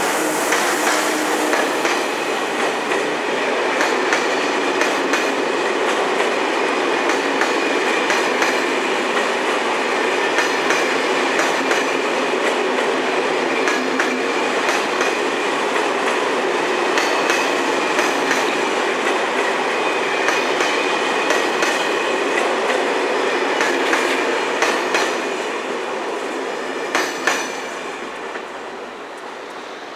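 Electric-locomotive-hauled passenger train of Corail coaches running past close by: a steady rush of wheels on rail with sharp clickety-clack clicks as the bogies cross rail joints, fading away in the last few seconds as the end of the train goes by.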